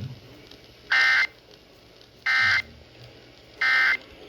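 Emergency Alert System end-of-message signal: three short, identical buzzing data bursts about 1.4 seconds apart. They are the SAME digital tones that mark the end of the severe thunderstorm warning.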